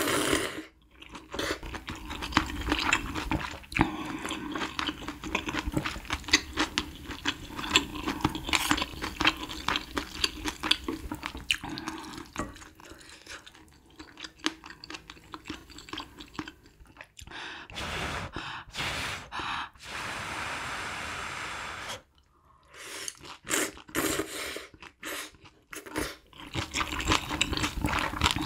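Close-miked eating of noodles in spicy broth: wet chewing with many small clicks and smacks. About two-thirds of the way through comes a steady rushing sound about two seconds long, then a brief hush before the chewing resumes.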